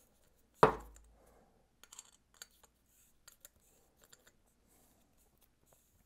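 Threaded aluminium end cap of a Pedaling Innovations Catalyst pedal cracking loose under a 6 mm T-handle Allen key: one sharp crack about half a second in, followed by scattered light metal clicks as the key turns the cap out.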